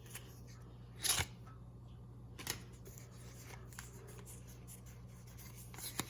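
A Pokémon trading card booster pack being opened and handled: a few short crinkles or snips of the foil wrapper and cards, the loudest about a second in, over a faint steady hum.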